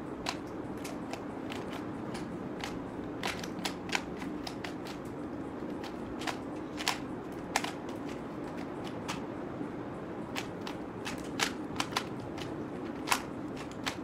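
A plastic 3x3 Rubik's cube turned quickly by hand: irregular clicks and clacks of the layers snapping round, a few sharper than the rest, over a steady low hum.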